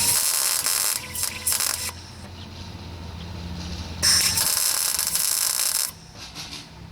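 MIG welder with 0.023-inch wire running beads on a steel car fender lip: two bursts of sizzling, crackling arc of about two seconds each, the second starting about four seconds in, with the welder's low steady hum between.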